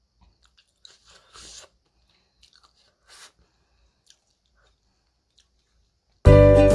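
Close mouth sounds of someone eating noodle soup from a spoon: faint chewing with a couple of short slurps. Music starts abruptly near the end.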